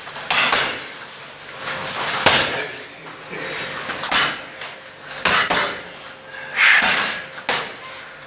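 Irregular heavy smacks and thuds of blows landing, about six strong hits, unevenly spaced a second or so apart, each with a short ringing tail.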